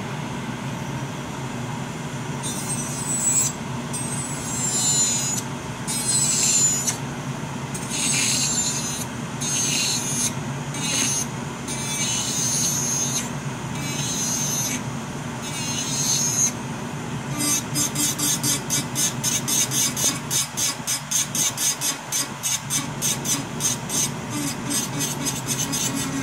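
Nail being filed over a running Nova Flair II nail dust collector, whose fan runs steadily at full speed under the filing. The strokes are uneven at first, then from about two-thirds of the way in become rapid back-and-forth strokes, about four a second.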